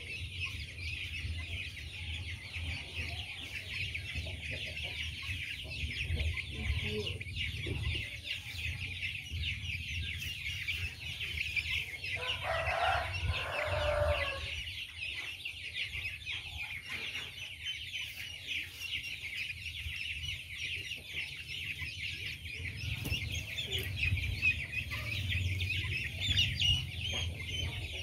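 Young chickens peeping without a break in quick, high chirps. About twelve seconds in, one bird gives a louder, lower call lasting a couple of seconds.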